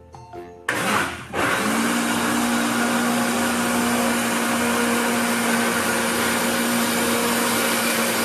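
Countertop blender switched on about a second in: its motor spins up briefly and then runs steadily with an even hum, blending a liquid mix of cream, condensed milk and lemon juice.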